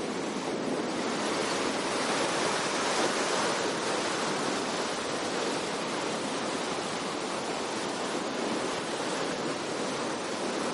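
Surf washing up a sandy beach: a steady, even rush of small breaking waves.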